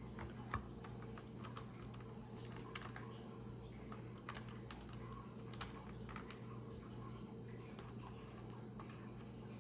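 Faint, irregular clicks and ticks of a small screwdriver and plastic parts as screws are put back into an Elcaset cassette shell, over a steady low electrical hum.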